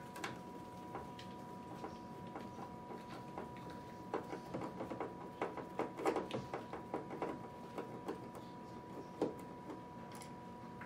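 Screwdriver working a small screw loose from a plastic pump housing: a run of small irregular clicks and scrapes, busiest around the middle, over a faint steady tone.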